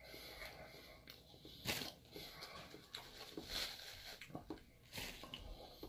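A person chewing a mouthful of Yule log cake roll: faint, soft mouth sounds with a few short clicks and smacks.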